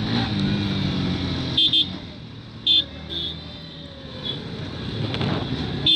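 Motorcycle engine running while riding in traffic, with several short horn beeps: a quick double beep under two seconds in, two more around three seconds, and another near the end.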